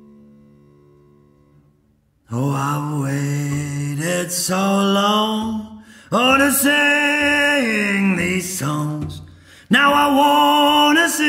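A male blues singer's voice singing three long, drawn-out phrases with no clear words and a gliding pitch, after a held low note dies away in the first two seconds.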